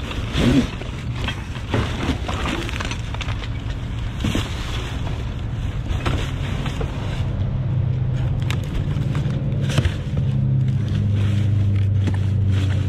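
Hands rummaging through a full dumpster, with rustling and scattered knocks of discarded items. From about seven seconds in, a motor vehicle's engine runs steadily and grows louder.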